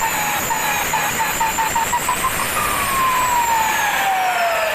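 Turbocharger on a Mitsubishi 6D16 straight-six diesel whistling as the engine is revved: the whistle climbs in pitch for about two and a half seconds, then falls in a long, smooth glide as the turbo spools down.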